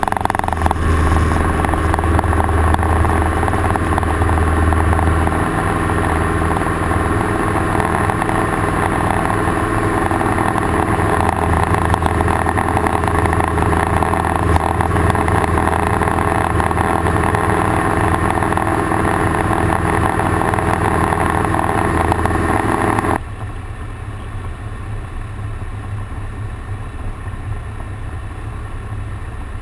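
Grumman Tiger's four-cylinder Lycoming engine and propeller at takeoff power, a loud steady drone through the takeoff roll and climb-out. About three-quarters of the way through, it cuts suddenly to a quieter, lower drone as the plane comes in to land on reduced power.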